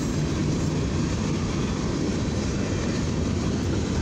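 Freight cars of a long mixed freight and steel train rolling past at about 35 mph: a steady rumble of steel wheels on the rails.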